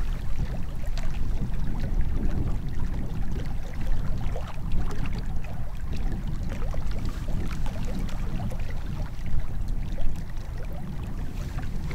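Wind buffeting the microphone, a steady low rumble, with faint scattered clicks above it.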